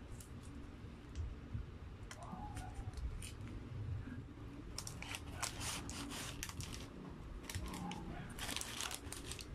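Paper crinkling and rustling as it is handled, in two crackly bouts: one about five seconds in and one near the end, with a few light ticks before.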